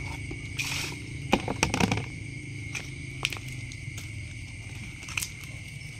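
Plastic baskets, a plastic basin and a mesh net being handled: a quick cluster of sharp knocks and rustles about a second and a half in, then a few single clicks, over a steady high hum.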